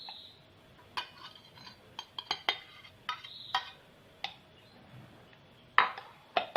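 Scattered light clinks and taps of a metal utensil against a pan and glass bottle, about seven sharp strikes spread over a few seconds, as pepper-infused oil is poured off into a bottle.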